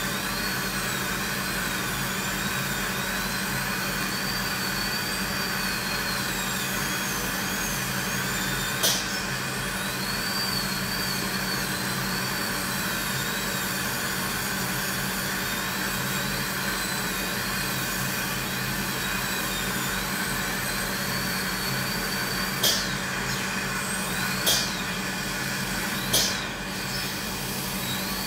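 Dental drill whining at high pitch, the whine rising and falling over and over, over a steady rushing noise. A sharp click sounds about nine seconds in, and three more come near the end.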